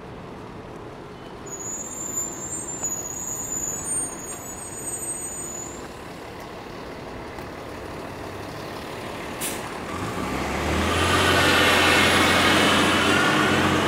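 High-pitched squeals in the first few seconds, then a heavy vehicle's low engine drone grows loud as it comes close, loudest near the end.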